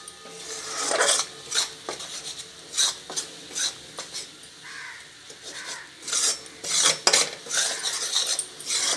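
A steel spatula scraping and stirring jaggery syrup as it heats in a black kadai, in irregular strokes about once a second.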